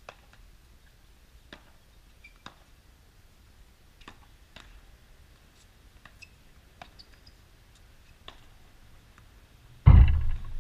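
Pop tennis rally: paddles hitting the ball and the ball bouncing on the hard court, a string of light, sharp taps at an uneven pace of about one every half second to a second and a half. Near the end a sudden loud, deep burst of noise cuts in and is the loudest thing heard.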